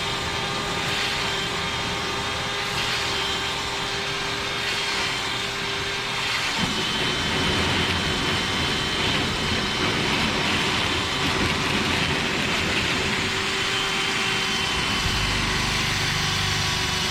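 Dryer vent cleaning equipment running steadily: a motor with a steady whine over a dense rushing noise, the low end growing stronger about six and a half seconds in.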